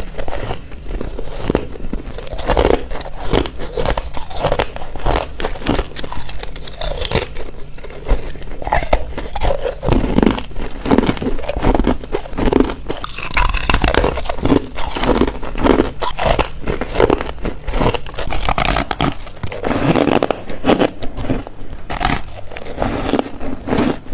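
A person biting into and chewing ice close to a lapel microphone: a dense run of dry, squeaky crunches, one bite after another.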